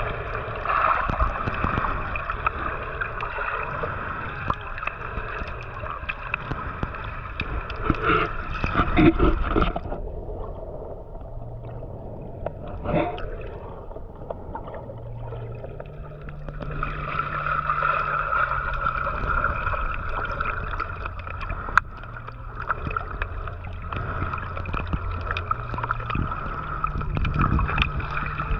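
Muffled underwater wash of moving water heard through a submerged camera, with gurgling and sloshing against the housing. It goes quieter for a few seconds in the middle, with a knock and, later, a sharp click.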